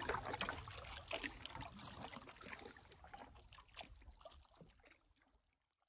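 Canoe paddle dipping and pulling through river water, with drips and small splashes. It fades away over a few seconds.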